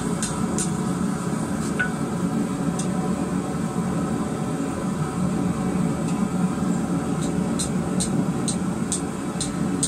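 Steady roar of the forge running, with light metallic clicks as a hot iron bar is worked into a scroll at the anvil. The clicks come about three a second near the end.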